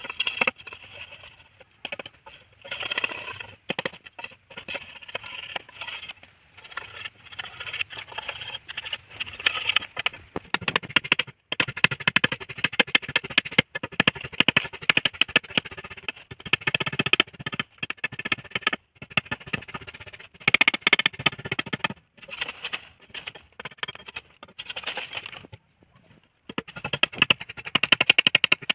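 Rapid, irregular blade strokes cutting and shaving a green bamboo stave, broken by a few short pauses, with music playing underneath.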